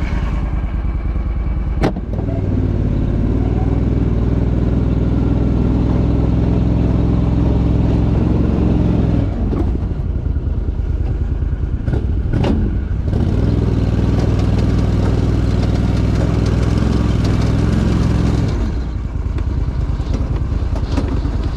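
Argo amphibious ATV's engine running, pulled up to a steady higher note under load for two stretches of several seconds each and easing back in between, with a sharp click at each change.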